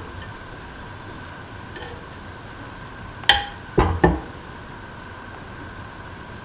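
Three sharp metallic clinks of kitchenware against a stainless steel pan, close together a little past three seconds in, over a steady background hum.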